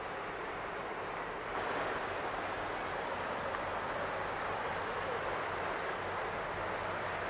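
Steady outdoor hiss of wind on the microphone and harbour water, which gets brighter and a little louder about one and a half seconds in.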